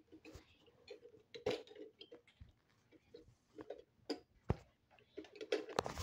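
Scattered clicks and taps of hands handling a plastic toy money box, a few of them sharper knocks, with denser rustling near the end.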